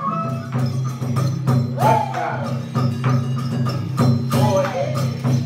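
Traditional Vietnamese ensemble music: quick wooden percussion strikes over a steady low tone, with gliding pitched notes about two seconds in and again after four seconds.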